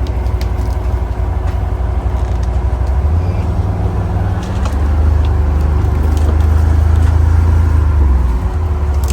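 Can-Am 6x6 side-by-side's engine running as it drives through brush: a steady low drone that eases off about four and a half seconds in and picks up again, with occasional sharp snaps of sticks and branches against the machine.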